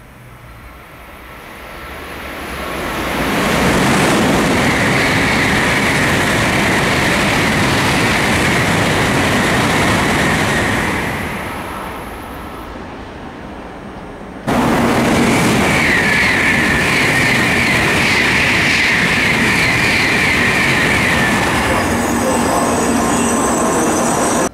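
N700-series Shinkansen train running through the station at speed: a rush of wheel and air noise swells over about four seconds, holds loud with a steady high whine, then fades as the train passes. After a sudden cut, a second Shinkansen comes in loud and steady with the same high whine, close by, and the sound stops abruptly at the end.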